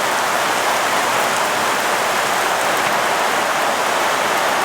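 Steady, even rain falling, loud and unbroken.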